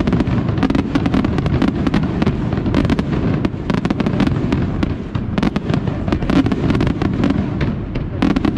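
Aerial fireworks display in full barrage: shells bursting in quick succession, a rapid, unbroken run of sharp bangs and crackles over a continuous low rumble.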